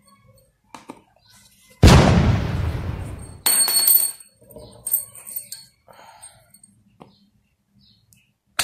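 A sudden loud bang that rings away over about a second and a half, followed by a short metallic rattle with high ringing tones, a few light clinks and knocks, and a sharp click near the end.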